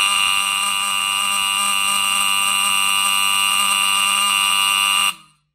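Edwards 895B-201 1980s electromechanical fire alarm horn sounding continuously on power-up: a loud, steady, raspy buzz rich in overtones, made by its disc shooting back and forth very fast. It cuts off suddenly about five seconds in when power is removed.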